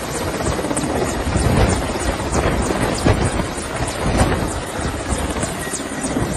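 Helicopter hovering: a steady, loud rotor and engine noise.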